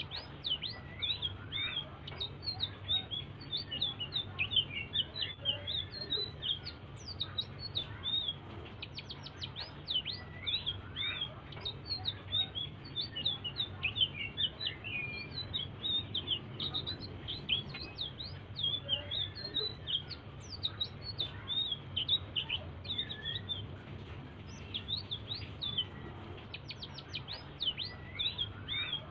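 Selendang biru songbird singing without pause: a rapid run of short, sharp, high chirps and quick up-and-down whistled notes, over a steady low hum.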